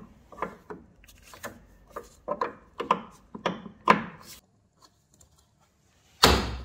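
Irregular knocks and clatters of hand work on car parts being taken apart, about a dozen in the first four seconds, then a pause and one loud sudden noise near the end.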